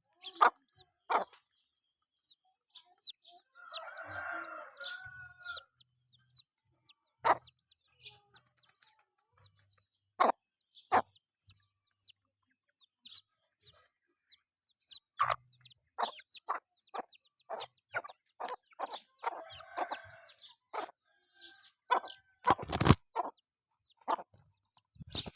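Chickens clucking, with two longer calls about four seconds in and about twenty seconds in, amid a scatter of short sharp clicks. A loud knock comes a few seconds before the end.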